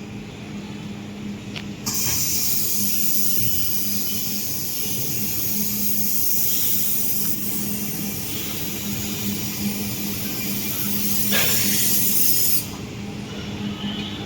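Rotary-head fiber laser welding machine running a weld pass on a steel tube: a steady hiss that switches on about two seconds in and cuts off suddenly near the end, over a constant machine hum.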